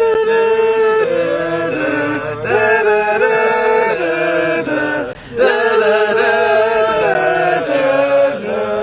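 A group of people singing a song together without instruments, in long held notes that change pitch, with a brief pause for breath about five seconds in.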